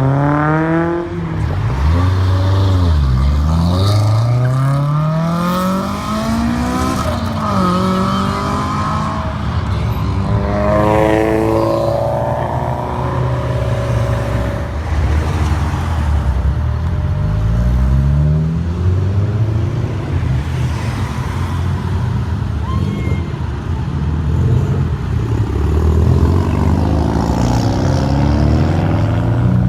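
Honda S2000 sports cars pulling away one after another, their inline-four engines revving up with rising pitch, several overlapping, over a constant low engine rumble.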